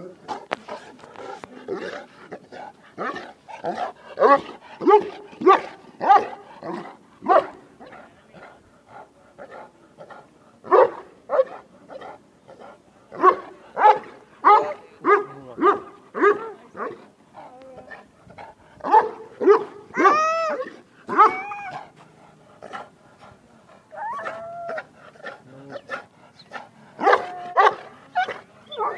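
Large Pakistani bully dog barking repeatedly in bursts of short, deep barks, with a longer rising-and-falling whine about twenty seconds in.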